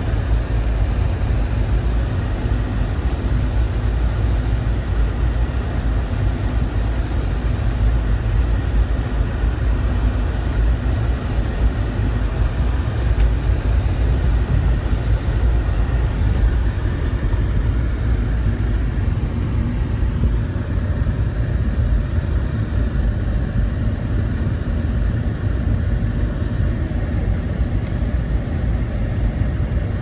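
Steady low rumble inside a moving car's cabin: engine and tyres on a snow-covered road.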